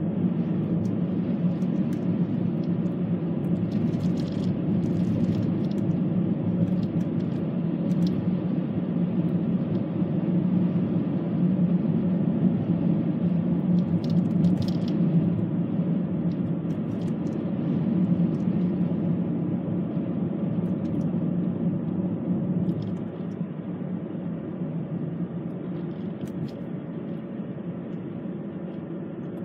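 Steady low road and engine rumble of a car driving on an asphalt road, heard from inside the cabin, with a few faint clicks. It gets a little quieter about two-thirds of the way through.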